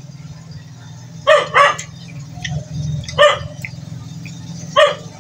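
A dog barking nearby: a quick double bark, then two single barks about a second and a half apart.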